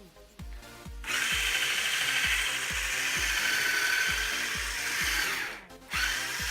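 Electric hand mixer whirring as it beats cake batter. It starts about a second in, cuts out briefly near the end and starts again, with background music's steady beat underneath.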